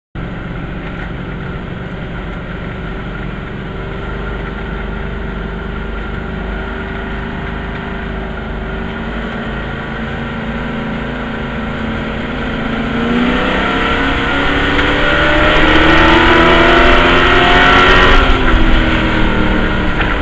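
Race truck's engine heard from inside the cockpit, running steadily at low speed. About two-thirds of the way in it accelerates hard, its pitch climbing and the sound growing loud, then eases off near the end.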